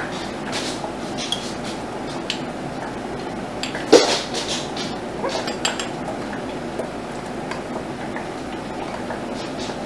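Metal spoon and plastic headspace tool clinking and scraping against glass mason jars as relish is spooned in, with scattered light clicks and one louder clink about four seconds in.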